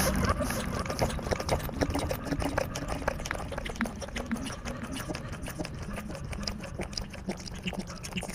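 Puppy lapping liquid from a ceramic bowl: a run of quick, irregular wet laps.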